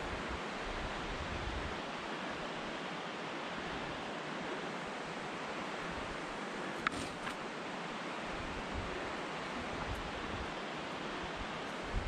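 Steady rushing of creek water, an even hiss with no break. There is a single sharp click about seven seconds in.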